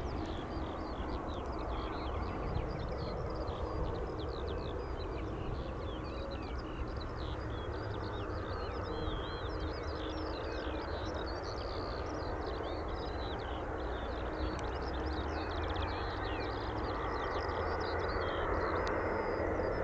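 Airbus A300-600ST Beluga's turbofan engines on final approach, a steady distant rumble that grows louder and brighter over the last few seconds. Small birds chirp continuously over it.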